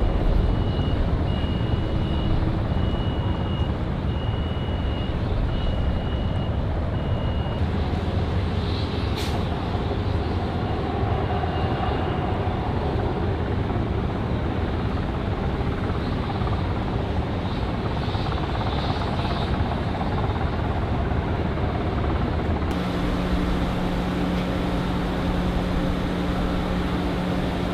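Steady rumble of vehicles and machinery outdoors, with a vehicle's reversing beeper sounding about once a second for the first seven seconds or so. About 23 seconds in, a steady low two-note hum comes in.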